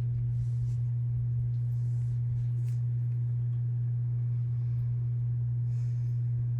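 A steady low hum at a single pitch, with faint soft rustles of tarot cards being handled and turned over a few times.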